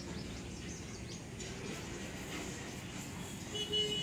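Faint short bird chirps over a steady low rumble, with a steady humming tone coming in near the end.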